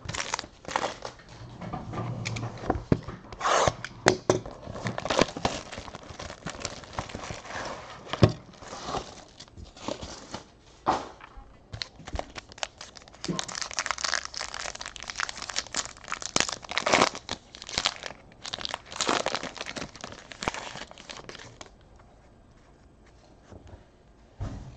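Plastic wrapping and packaging being torn open and crinkled by hand in quick, irregular rustles, as a sealed trading-card box is opened. The rustling stops a few seconds before the end.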